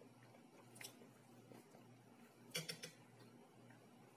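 Near-quiet room with a faint steady low hum, broken by a light click and then, about two and a half seconds in, a short cluster of clinks as a metal fork is set down on a ceramic plate.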